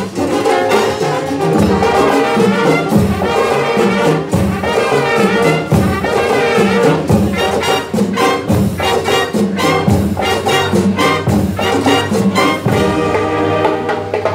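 Marching band playing, led by trumpets and trombones, with drums beating steadily underneath.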